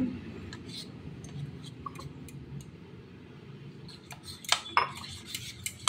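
A metal spoon stirring thick gram-flour (besan) batter in a bowl: soft scrapes and small ticks, then a few sharp clinks of utensils about four and a half seconds in and once more near the end.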